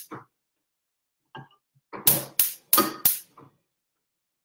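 Gas hob's spark igniter clicking: a run of four sharp clicks at about three a second, starting about two seconds in.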